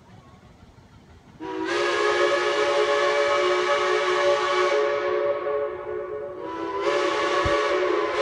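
Shay #11, a Shay geared steam locomotive, blowing its steam whistle: two loud, long blasts, each a chord of several steady tones. The first starts about a second and a half in and lasts about three and a half seconds before fading off; the second starts about six and a half seconds in and is still sounding at the end.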